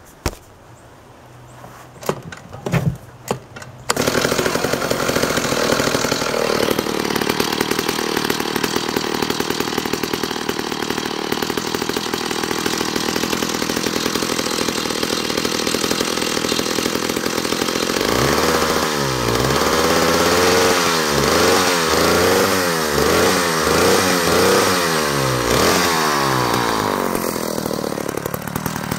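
A vintage McCulloch Mac 15 two-stroke chainsaw engine is started. After a few clicks and knocks, it catches about four seconds in and runs steadily. From about two-thirds of the way through it is revved up and down about eight times, then drops back to a steady run near the end, on a carburettor the owner says is not set right.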